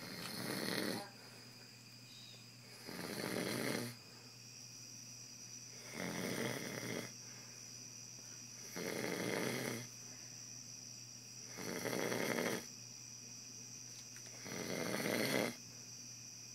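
A man snoring in his sleep, one loud snore about every three seconds, six in all.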